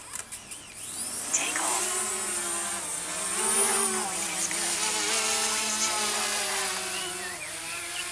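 DJI Mavic Mini quadcopter's propellers spinning up and lifting off: after a few short clicks, a buzz starts about a second in and rises in pitch as the drone climbs, then holds steady.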